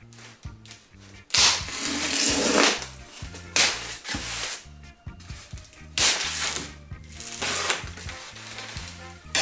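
Polystyrene foam shipping box being worked open by hand: four loud rasping scrapes of foam on foam. Background music with a steady bass line runs underneath.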